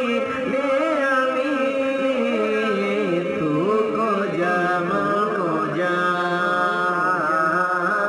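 Islamic background music: a solo voice chanting a slow, ornamented melody with long held, wavering notes.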